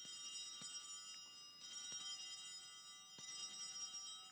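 Altar bells (a cluster of small hand bells) rung three times, about a second and a half apart, each ring bright and high and dying away slowly. They mark the elevation of the consecrated host at the consecration.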